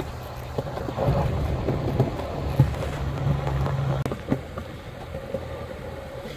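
Skateboard wheels rolling over smooth concrete: a steady low rumble with scattered clicks as the wheels cross joints in the floor. The rumble drops suddenly about four seconds in and goes on more quietly.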